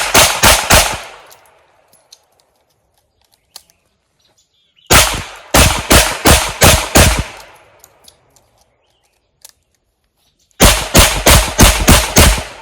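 Revolver firing in rapid strings of shots, about three a second, with a pause of a few seconds between strings. The first string ends about a second in, the second comes near the middle, and the third near the end.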